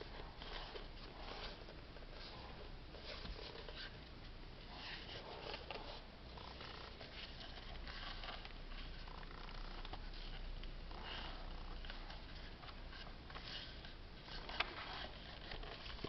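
Paper pages of a hand-bound hardcover notebook rustling and fanning as the book is handled, its covers rubbing against the hands in uneven bursts, with one sharp click near the end.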